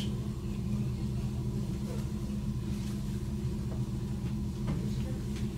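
A steady low hum made of several fixed low tones, with a few faint clicks over it.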